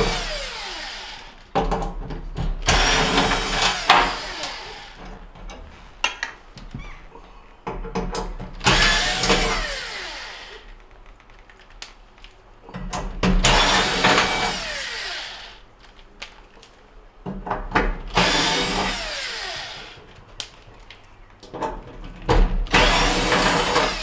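Cordless drill/driver with a square bit backing out screws from gas-range burner bases, running in short bursts of a second or two about every four to five seconds. Short clicks and knocks fill the gaps between the runs.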